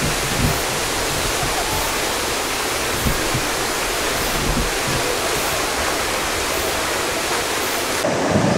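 Discharge water from the Tsujun Bridge, Japan's largest stone arch aqueduct, gushing out of the bridge's side outlets and crashing into the gorge below: a steady rush of falling water that changes character near the end.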